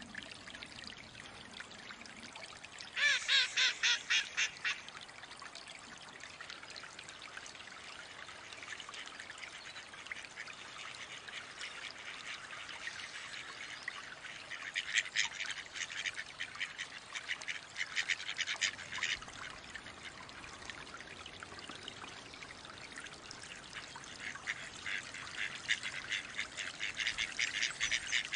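Mallard quacking: a loud run of about six quick quacks about three seconds in, scattered bursts of quacks in the middle, and quacking that grows louder near the end, over a steady trickle of water.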